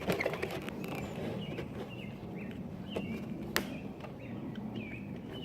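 Handling noise: scattered sharp clicks and knocks, the loudest about three and a half seconds in, with a few short high chirps over a low background hiss.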